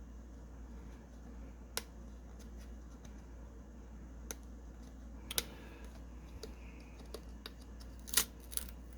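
A few sparse, sharp clicks and snaps as a thick Dare to Tear trading card is cut and torn open by hand, the loudest near the end, over a low steady hum.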